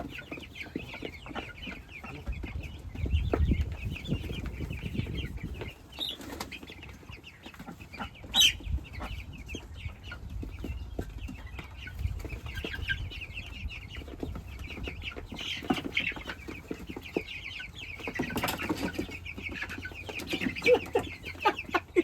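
A flock of young meat chickens cheeping continuously, a dense chorus of short high peeps with some clucking, and one sharper call about eight seconds in. A low rumble runs under it about three to five seconds in.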